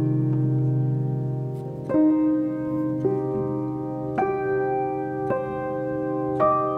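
Background music: slow piano, with a new note or chord struck about once a second and each left to ring.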